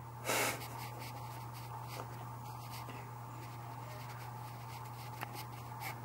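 Steady low hum of room background, with a short puff of breath about half a second in and a couple of faint clicks later.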